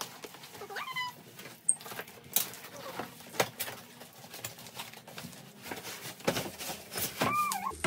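Cardboard boxes being handled while a boxed TV tray table is pulled out: irregular scrapes, taps and knocks of cardboard. Two short high-pitched calls cut in, one about a second in and one near the end.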